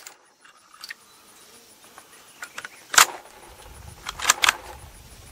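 Bolt of a Ruger American bolt-action rifle being worked, metallic clacks: one sharp clack about three seconds in and two more in quick succession a little over a second later.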